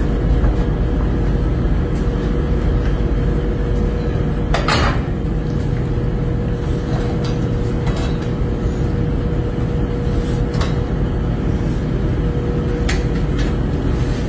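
Steady low machinery hum with a constant whine, typical of hatchery incubator fans. Over it come scattered clicks and knocks of plastic egg trays and baskets being handled, the loudest about five seconds in.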